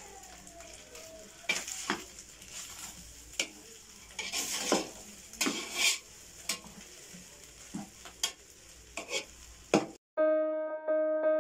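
A spoon stirring and scraping rice in a large aluminium pot, in irregular scrapes and knocks. About ten seconds in, this cuts off suddenly and keyboard music with steady held notes begins.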